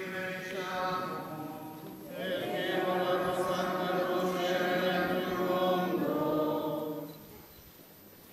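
Slow chanting in long held notes, growing fuller about two seconds in and breaking off about seven seconds in.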